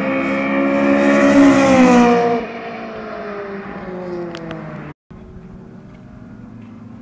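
A car flying past at speed, its engine loud and high, the pitch dropping as it goes by about two seconds in, then fading. After a brief cut about five seconds in, a fainter engine from a car farther off.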